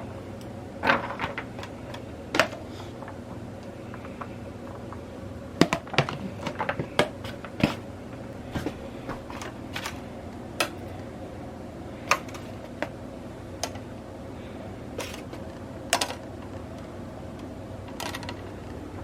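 Irregular light clicks and knocks, like utensils and containers being handled on a kitchen counter, a cluster of them a little over halfway through, over a steady background hum.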